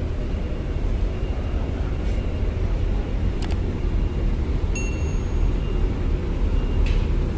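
Steady low rumble of a ro-ro ferry's engines as the ship gets under way, with a few faint clicks and a brief high tone about five seconds in.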